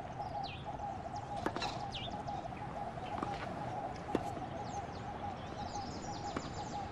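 Birds chirping, with short falling calls scattered through and a cluster near the end, over a steady hum. Four sharp knocks of a tennis ball being struck in a rally come a second or two apart.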